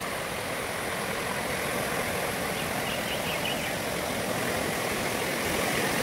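Steady, even rushing noise, with a few faint high chirps about halfway through; it cuts off suddenly at the end.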